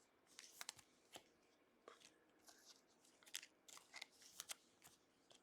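Faint clicks and rustles of trading cards being handled and slid across one another, a dozen or so short, scattered card sounds.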